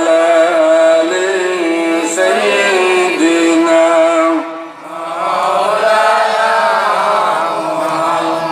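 A voice chanting in long, held melodic notes, in the style of a religious recitation, with a brief pause for breath about halfway.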